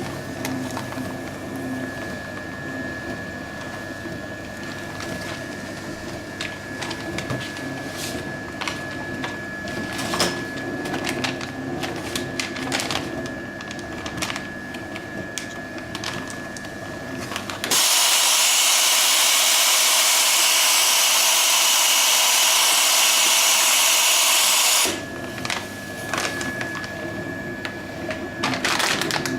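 Continuous band sealer with gas flush running: a steady motor and conveyor hum with a thin high whine and scattered clicks. About two-thirds of the way in, a loud hiss of blowing gas cuts in for about seven seconds, then stops suddenly and the machine hum carries on.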